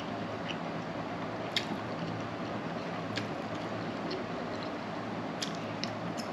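A steady low hum with about five faint, short clicks scattered through it.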